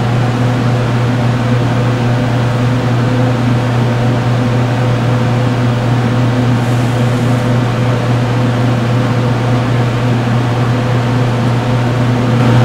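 Steady mechanical hum of running fans: a strong low drone with a few fainter steady tones above it.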